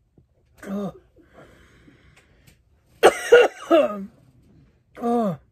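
A woman coughing and choking, with a short cough about a second in, a loud fit of several coughs at about three seconds, and another near the end, each trailing off with a drop in pitch. She is choking on Carolina Reaper pepper dust that she inhaled while chewing.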